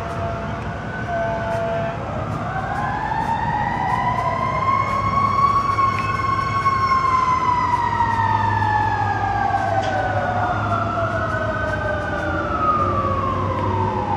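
Several emergency sirens, most likely fire engines answering the blaze, wailing slowly up and down and overlapping one another, over a steady low rumble.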